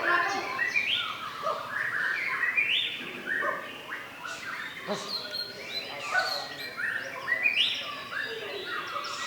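Many caged songbirds at a singing contest chirping and trilling at once in a dense, continuous chorus of overlapping phrases.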